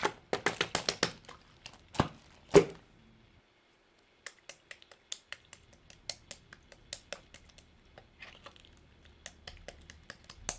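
Red clear slime being squeezed and poked by hand, making sharp popping clicks. The clicks come thick and loud for the first three seconds, stop briefly, then go on lighter at a few clicks a second.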